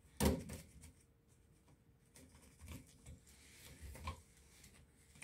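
Faint handling sounds of an electrical receptacle being wired: a short knock just after the start, then a few small clicks and rubs as gloved hands seat the wire under the back-wire terminal.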